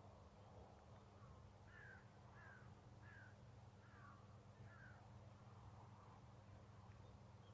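A crow calling faintly: five short harsh caws about two-thirds of a second apart, starting about two seconds in, over a steady low background rumble.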